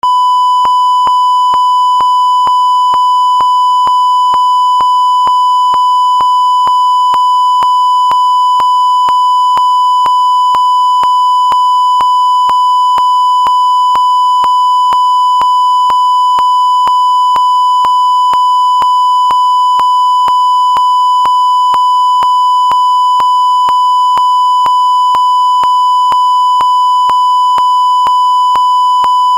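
A continuous, steady electronic beep tone at 1 kHz, held at constant loudness, with a harsh edge from overtones above it. Faint regular clicks sound about twice a second.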